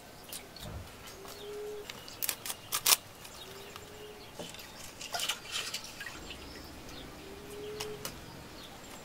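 Hands mixing raw fish pieces with spices in a clay pot, with wet handling sounds and a few sharp clicks, the loudest just before three seconds in. A bird calls a short low note every two to four seconds.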